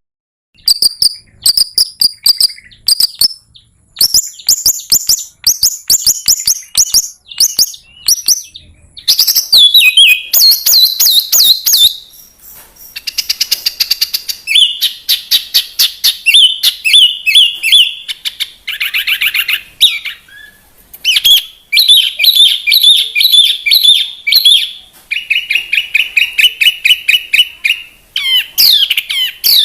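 Songbird singing a fast, varied song of high trills and rapidly repeated chirps, in runs of a few seconds that keep changing pattern, with a few short pauses.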